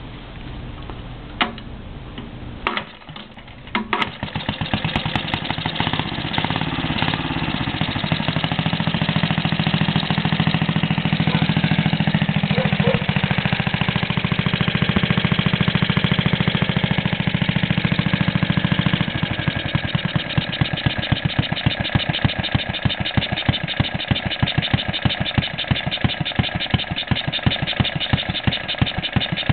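1941 Briggs & Stratton model WMB single-cylinder engine being kick-started: a few knocks of the kick pedal, then it catches about four seconds in and runs with a rapid, steady firing beat. About two-thirds of the way in its sound changes, the low hum dropping away and the single firing strokes standing out more plainly.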